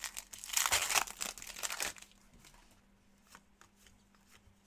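Crinkling of a trading-card pack wrapper or plastic packaging being handled for about a second and a half, followed by a few faint clicks.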